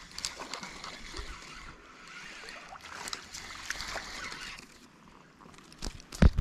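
Spinning reel being cranked, a fine whirring with many small ticks, while a hooked goldeye splashes at the water's surface. Near the end there are two sharp knocks and a splash as the fish is thrown back.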